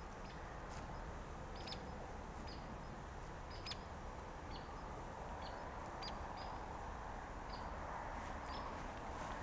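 Small birds chirping, short high calls at irregular intervals, over a steady hum of outdoor background noise.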